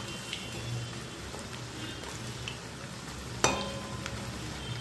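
Batter-coated cauliflower florets deep-frying in hot oil in a metal kadai, a steady sizzle as they are turned with a perforated metal skimmer. About three and a half seconds in, the skimmer strikes the pan once with a ringing metal clink.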